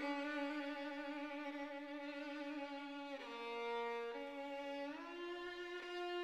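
Slow violin melody of long held notes, sliding smoothly from one pitch to the next, with a slight vibrato.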